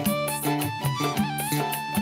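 Live band playing: a drum kit with cymbals keeps a busy beat under a sliding lead melody and a bass line.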